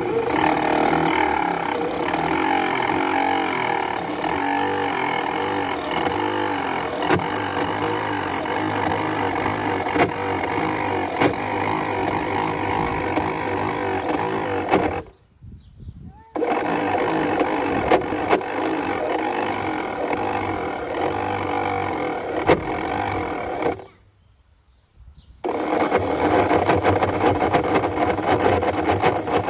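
Outboard power trim-and-tilt pump motor running with a steady whine. It stops abruptly twice for a second or so and starts again each time. It runs rough, which the owner puts down to the trim system being low on fluid.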